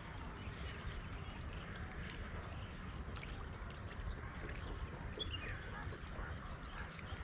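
Insects trilling steadily in a continuous high, finely pulsed note over a low rumble, with a few short high chirps, one falling in pitch about five seconds in.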